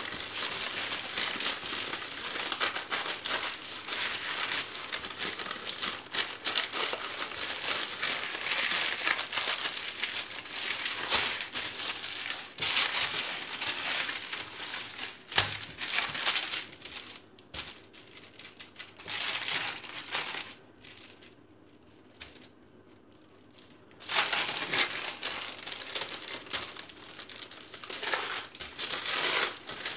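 Baking parchment crinkling and rustling as hands roll and press a log of biscotti dough wrapped in it, with a lull of a few seconds about two-thirds of the way through before the crinkling resumes.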